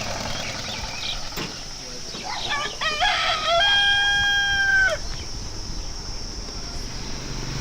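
A rooster crows once, a stuttering rise into one long held note, over steady background noise.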